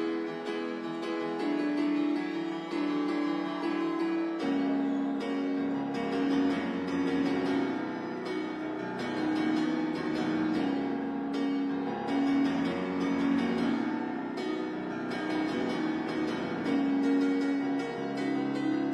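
Grand piano played live, a slow run of sustained chords and melody notes; deeper bass notes join about four seconds in.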